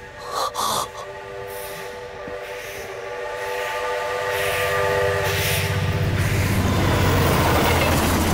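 Steam locomotive whistle sounding one long chord of several tones, after two short sharp bursts at the start. Partway through, the locomotive's low rhythmic running noise and steam hiss come in and build steadily louder toward the end.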